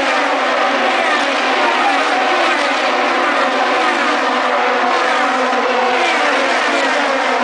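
The pack of IndyCars' Honda V8 engines passing at racing speed on the start of the race, many engines overlapping into one continuous loud howl, each car's pitch dropping as it goes by.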